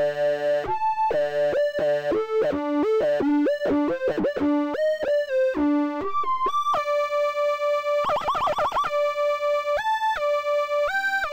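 Acid-style synth line from a Malström graintable synthesizer patch, run through Etch Red's two filters and a distortion unit. It plays a quick run of stepping notes, then longer held notes, with a fast warbling passage about eight seconds in.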